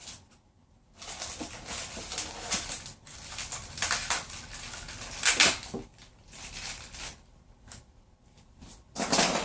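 Packaging being opened by hand, rustling and crackling in quick bursts. It starts about a second in and dies down after about seven seconds, with one more short burst near the end.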